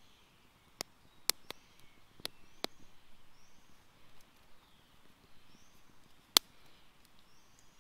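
Thin sticks snapped by hand: five sharp cracks in the first three seconds and a single louder crack about six seconds in. A bird gives a short call every second or two in the background.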